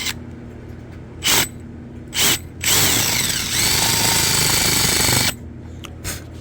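Electric drill run in two brief trigger blips, then held for about two and a half seconds: the motor winds up in pitch, runs steady, and stops suddenly. It is drilling holes for screws in a door jamb.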